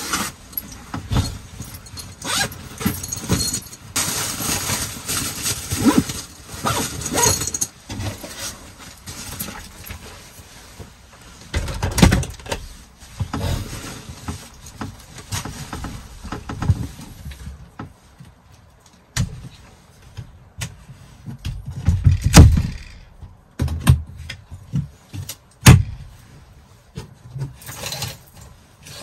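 Handling noises in a small cabin: rustling, clinks and knocks as things are moved about, with a few heavier thumps, about 12 and 22 seconds in, and a sharp click a few seconds later.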